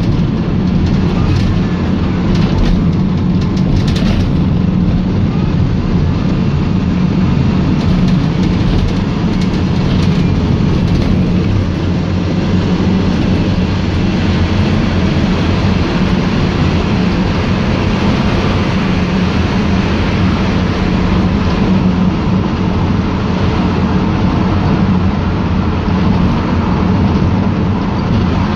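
VW Transporter T5 minibus on the move, its engine and road noise making a steady drone with no marked changes in speed.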